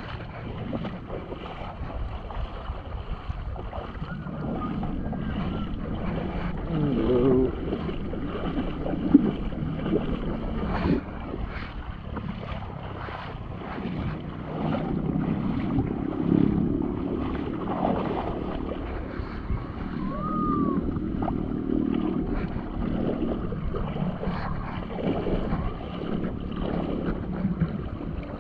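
Shallow sea water sloshing and splashing around the legs of someone wading, coming in uneven swells, with wind buffeting the microphone.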